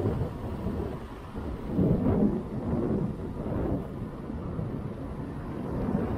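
Wind buffeting the microphone of a chest-mounted action camera on a moving electric scooter: a low, unpitched rumble that swells and fades several times and is loudest about two seconds in.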